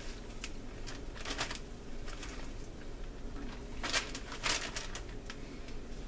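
Plastic zipper-top storage bag crinkling in short, scattered rustles as it is held open and handled with chicken thighs in marinade inside.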